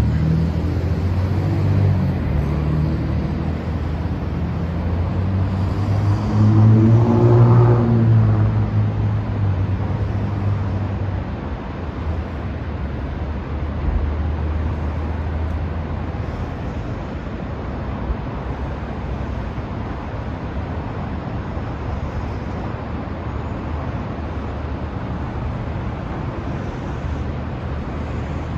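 Steady roar of the Willamette Falls waterfall mixed with road traffic, one vehicle passing and loudest about seven seconds in.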